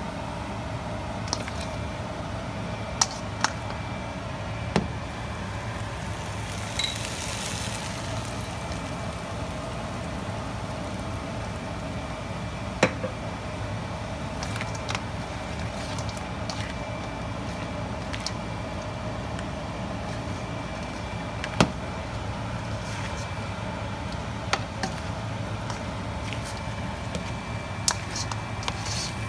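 Blue crab, prawns and noodles sizzling in a hot wok over a steady low hum, with a sharp click now and then as the spatula strikes the wok.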